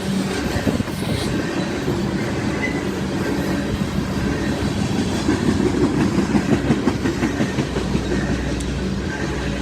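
Loaded coal train rolling past: a steady rumble of steel wheels on rail, with a run of regular clickety-clack over the rail joints about midway.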